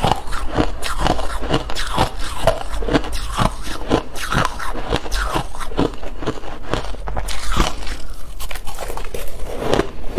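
A person chewing mouthfuls of shaved ice: a continuous run of crisp crunches, two to three a second.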